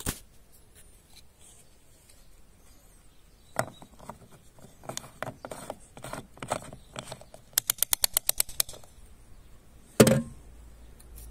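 A car fuel filler cap being screwed into the tank neck: scattered clicks and handling noises, then a quick run of about a dozen ratchet clicks as the cap is tightened. Near the end the fuel flap is shut with one loud knock.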